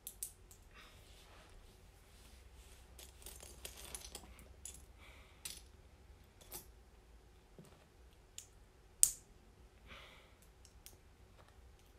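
Small plastic LEGO pieces clicking and rattling as hands sort through a loose pile and fit pieces together: faint scattered clicks, with a sharper click about nine seconds in.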